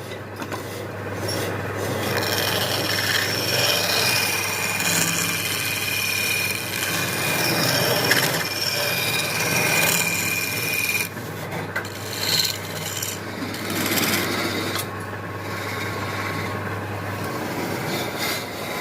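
Wood being abraded by a tool: continuous rough rubbing and rasping, with a steady high whine that stops about eleven seconds in, after which the scraping is quieter and more broken.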